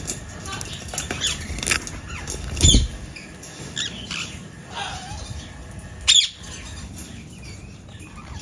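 Parakeet squawks and short chirps, several scattered through, sharp and high. A loud thump comes with a squawk near three seconds in, and another loud squawk about six seconds in.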